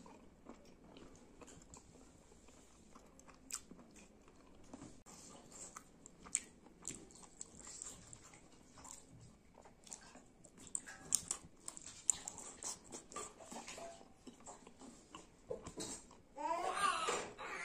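Mouth sounds of eating skin curry with rice by hand: steady chewing with many small clicks of biting. Near the end a short wavering vocal sound is the loudest thing.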